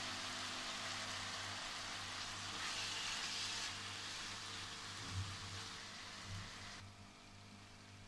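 Chicken-and-vegetable sauce sizzling gently in a nonstick wok over lowered heat, with a couple of soft knocks as a silicone spatula stirs it. The sizzle drops off abruptly about seven seconds in.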